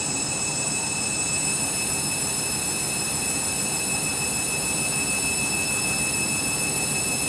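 Candy washing machine running in a suds lock, clogged up with excess foam: a steady rushing noise with a constant high-pitched whine.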